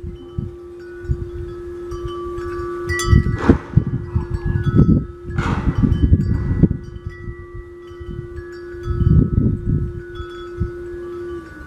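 Wind chimes ringing, several high tones overlapping and dying away, with a steady low tone beneath that cuts off near the end. Irregular low gusty rumbling runs underneath, with two brief swishes a few seconds in.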